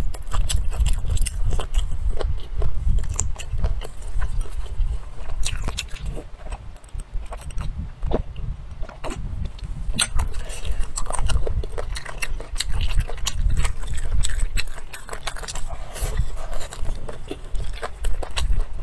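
A person chewing and biting food with many irregular sharp clicks and clinks, over a constant low thudding from the chewing.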